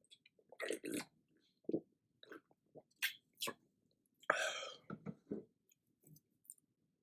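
Close-up eating sounds: a person chewing, with a run of short wet mouth noises and one longer noisy burst about four and a half seconds in.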